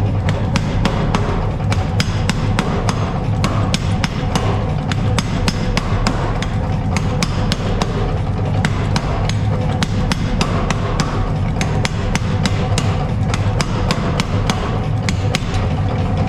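Rapid, evenly paced hammer strikes on steel, about four a second, over a steady low machine hum.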